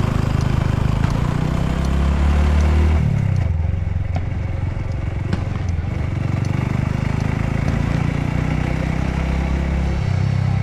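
Honda Cross Cub's single-cylinder four-stroke engine running on the move. Its pitch drops about three seconds in and climbs again near the end.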